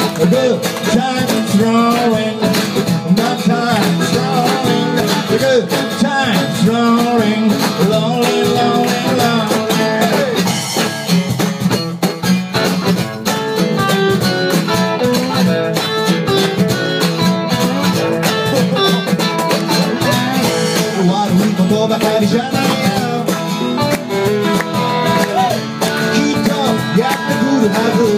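Live band music: guitar strummed in a steady rhythm with a singer's voice over it.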